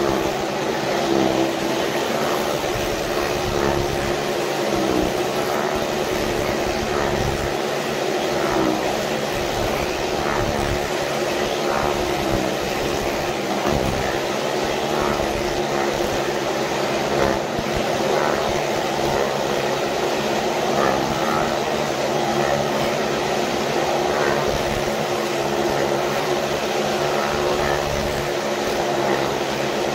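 Several motorcycles circling the vertical wooden wall of a well-of-death drum, their engines running in a steady, continuous drone.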